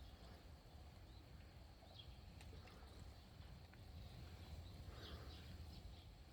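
Faint outdoor background at near silence: a low steady rumble with a few faint crackles and faint high chirps scattered through it.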